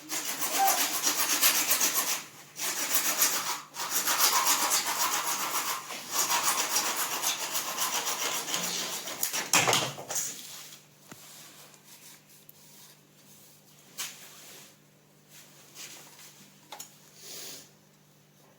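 A hand tool rasping against a uPVC pipe in four long scraping passes over about ten seconds, then only faint taps and handling noise.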